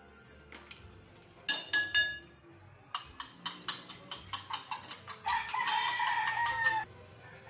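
A fork beating an egg in a plastic bowl, tapping the sides about five times a second, after a loud clatter of kitchenware. Near the end a rooster crows once for about a second and a half.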